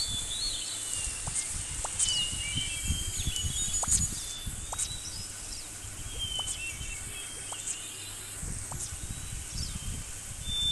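Outdoor nature ambience: birds chirping in short, scattered calls and trills over a low, uneven background noise.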